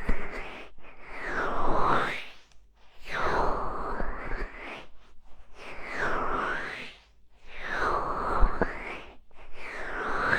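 Hands cupping over and rubbing the ears of a binaural microphone: muffled rushing swells whose tone sweeps down and back up, about one every two seconds.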